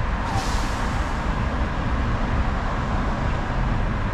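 Steady road traffic moving through a busy city intersection, cars passing, with a brief hiss about half a second in.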